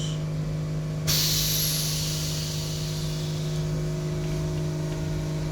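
A steady low mechanical hum, with a sudden hiss starting about a second in that fades away over the next two to three seconds.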